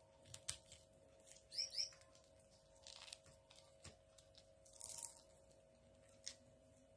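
Pomelo being peeled by hand: faint, scattered tearing and crackling as the pith and segment membranes are pulled apart, over a steady faint hum.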